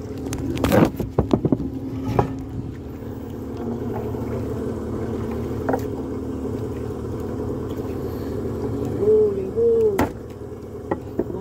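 Steady engine hum, with several sharp knocks in the first two seconds, two short wavering tones a little before the end, and a sharp click just after them.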